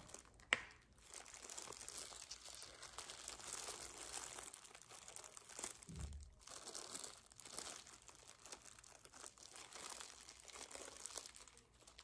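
Faint crinkling of thin plastic food-prep gloves as hands peel slices of bread and fillings off a layered sandwich, with one sharp click about half a second in.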